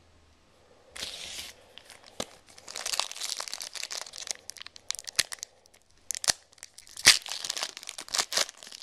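Wrapper of a trading card pack being torn open and crinkled: several bursts of rustling and sharp crackles, the loudest about seven seconds in.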